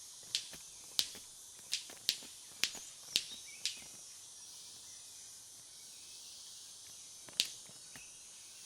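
Male white-collared manakin's courtship wing snaps: sharp cracks like firecrackers, seven in quick, irregular succession over the first four seconds and one more near the end. Under them runs a steady high hiss of insects.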